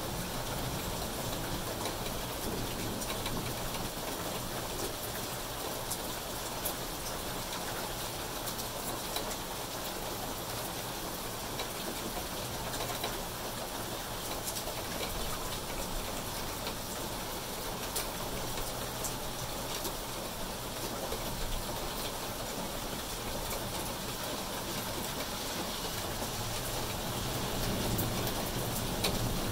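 Steady rain falling on leaves, grass and a concrete walkway, an even hiss with scattered individual drop ticks. A low rumble grows slightly louder near the end.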